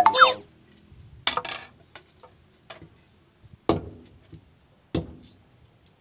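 Parang (machete) blade knocking against and cutting bamboo: three sharp knocks with a short ring, a second or more apart, with fainter ticks between. A brief sliding sound comes right at the start.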